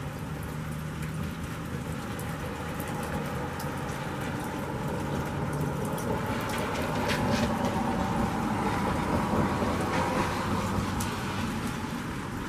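Steady rain falling, with scattered close drops ticking. A car passes on the wet road, its tyre hiss swelling from about halfway through and fading near the end.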